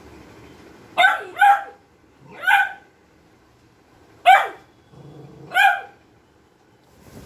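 A beagle puppy barking five times in short barks, the first two close together, then pauses between the rest.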